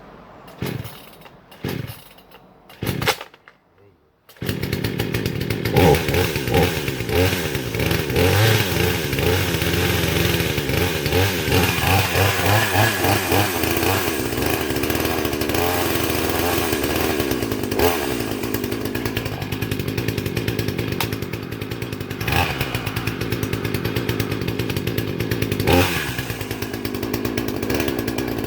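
Hyundai HYC6200X 62cc two-stroke petrol chainsaw on its first start: a few short sputters, then the engine catches about four seconds in and runs. It is revved in surges for several seconds, then runs more steadily.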